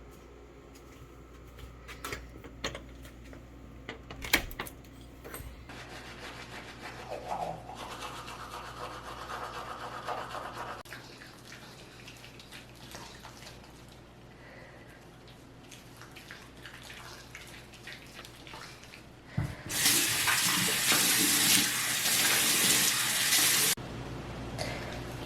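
Light knocks and handling sounds, then water running hard, like a tap into a sink, for about four seconds near the end.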